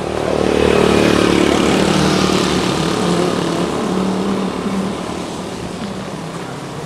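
A motor vehicle's engine running: it grows louder over the first second, holds, then slowly fades.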